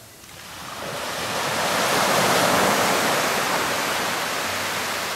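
Surf on a sandy beach: a wave breaking and washing up the shore, a hiss that swells over about two seconds and then slowly dies away.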